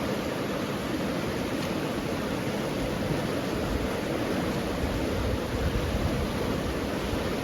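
Fast snowmelt creek with a strong current, rushing steadily.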